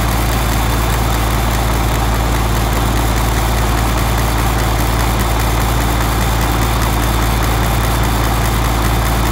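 International Paystar truck's engine and drivetrain running steadily at idle in gear, spinning the newly built driveshaft: a loud, even drone that holds unchanged throughout.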